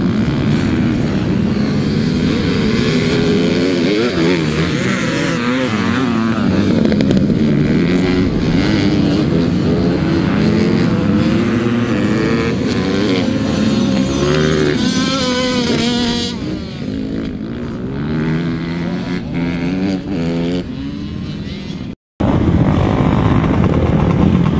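Several dirt bike engines revving and shifting on the track, their pitches rising and falling and overlapping. The sound cuts out for a moment near the end, then engines pick up again.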